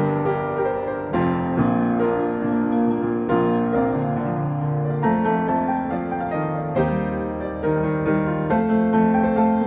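Solo piano playing a slow chordal passage, with new chords struck about every one to two seconds over held bass notes.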